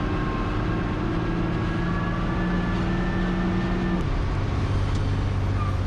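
Truck engine running steadily, heard from inside the cab, with a droning hum whose note changes about four seconds in.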